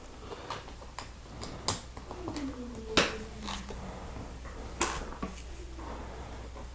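Small plastic Lego pieces clicking and tapping as they are handled and pressed together, with a few sharper snaps, the loudest about three seconds in. A faint falling tone runs through the middle.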